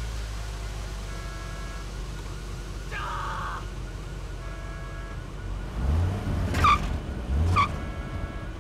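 Car engines idling in a steady low rumble. A faint cluster of tones repeats every three seconds or so, and two heavy thumps come near the end.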